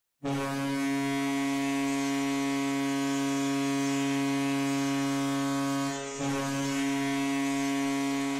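A loud, steady horn blast holding one chord of several pitches. It starts suddenly just after the opening silence, dips briefly about six seconds in, and then carries on unchanged.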